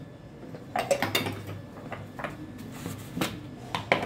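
A handful of short clicks and knocks from a measuring spoon and spice jars being handled and set down on a countertop.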